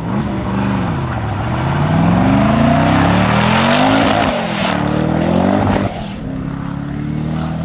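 Twin-turbo engine of a 1007 hp Ultima GTR launching from a standing start and accelerating hard. The pitch climbs and drops back at each gear change several times. Just before the end it turns quieter and steadier as the car pulls away.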